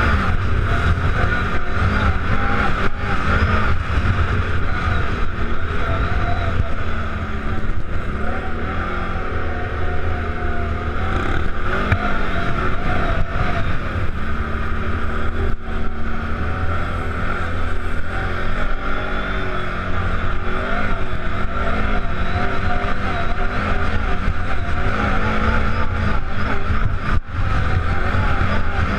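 ATV engine running under way, heard from on board while riding a sandy trail, its pitch rising and falling with the throttle.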